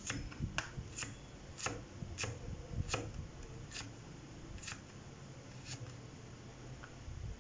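Kitchen knife slicing carrot on a plastic cutting board, a short sharp tap with each cut. The cuts come about one a second, spacing out and growing fainter in the second half.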